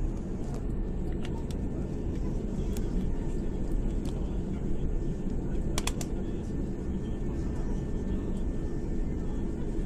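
Steady low rumble inside the cabin of an Airbus A310 airliner taxiing, its engines at low thrust. A few sharp clicks sound in the middle, two of them close together about six seconds in.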